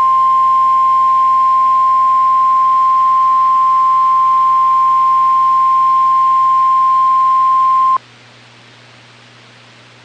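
NOAA Weather Radio warning alarm tone, a single steady 1050 Hz tone announcing an emergency warning message. It cuts off suddenly about eight seconds in, leaving only faint radio hiss.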